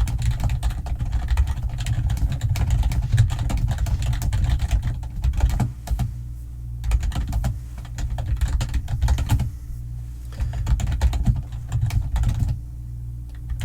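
Rapid typing on a computer keyboard, a dense clatter of keystrokes in runs with a few short pauses, over a steady low hum.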